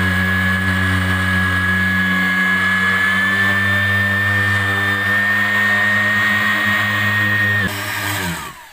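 Random orbital sander running on a wooden board: a steady motor hum with a high whine. Near the end it winds down, the whine falling in pitch.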